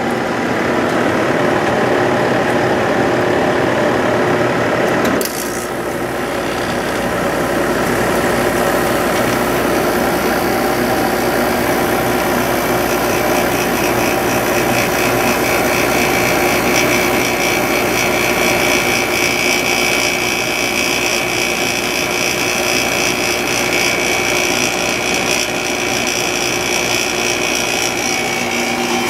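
Sharp 8500 BTU window air conditioner running, its fan blowing with a steady hum. About five seconds in there is a sudden click and a change in tone as the compressor starts. Higher whining tones grow stronger later on.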